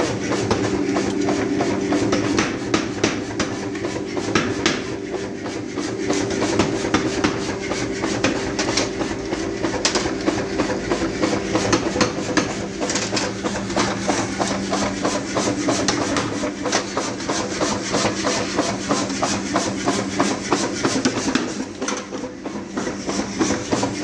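Electric forge blower running steadily, blowing air into a coal forge fire: a constant hum with a dense stream of small crackles and clicks over it.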